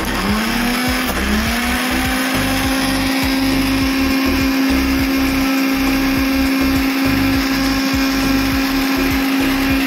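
Electric mixer grinder running with a small stainless-steel jar, its motor whine climbing in pitch twice within the first second and a half as it comes up to speed, then running steadily at full speed.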